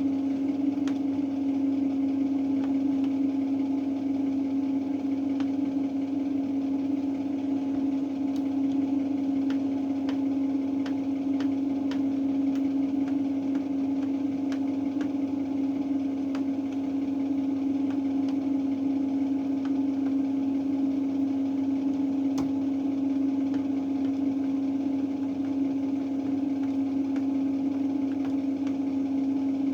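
Beko WRE7532XO washing machine running with a steady, even hum, with a few faint clicks here and there.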